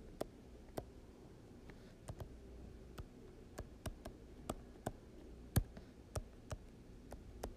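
Stylus tapping on an iPad's glass screen during handwriting: a scatter of sharp, irregular clicks as each stroke is put down, one of them louder a little past the middle.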